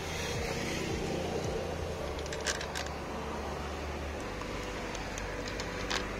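A few short metallic clicks, two close together about two and a half seconds in and one near the end, as bolts are set by hand into the plastic rocker cover of a 1.6 HDi diesel engine. A steady low hum runs underneath.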